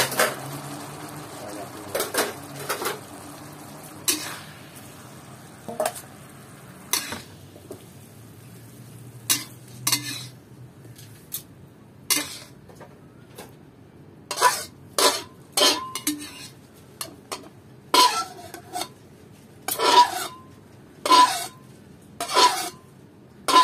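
Metal spatula scraping and clanking against a metal wok while stir-fried baby corn is scooped out. The strokes are sparse at first and come closer together in the second half, several with a short metallic ring.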